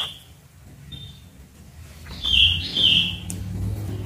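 Bird chirping in short, high, stepped calls: a brief call about a second in, then a longer run of chirps a little past two seconds, over a low hum that comes up at the same time.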